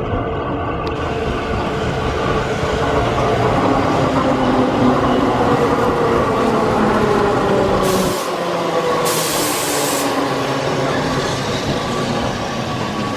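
Electric commuter train pulling into a station platform, slowing, its motor whine falling in pitch. Short bursts of air hiss about eight seconds in and again a second later, as the train comes to a stop.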